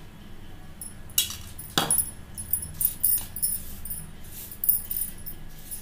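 Steel spoon clinking against a ceramic bowl and plate as oil is spooned onto flour, two louder clinks about a second in, then lighter irregular metallic jingles and rustling as a hand rubs the oil into the flour.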